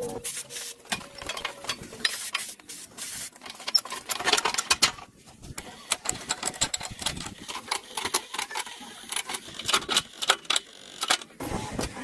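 Irregular clicks, clinks and knocks of hand-tool work, several each second, with no engine running.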